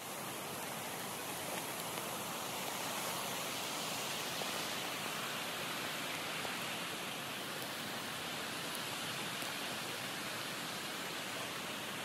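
Steady rushing of flowing flood water, an even hiss that does not change.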